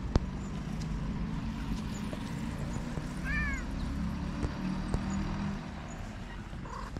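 A stray cat gives one short meow, rising then falling in pitch, about three seconds in, over a steady low rumble. A sharp click comes right at the start.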